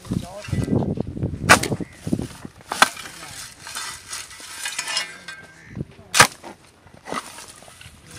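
A long-handled hoe chopping into sandy soil and scraping through it to dig out a burrow, with several sharp blade strikes between rough scraping and rustling of sand and twigs.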